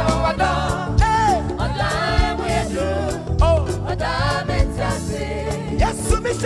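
Live Twi gospel music: a voice singing gliding, ornamented lines over keyboard, bass and a steady drum beat.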